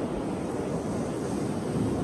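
Ocean surf washing against rocks, with wind buffeting the microphone.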